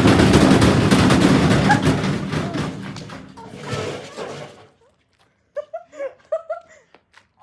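Heavy bricks banging and rattling inside a Samsung washing machine's spinning drum, a dense rapid clatter that dies away over about four seconds. A person's voice is heard briefly near the end.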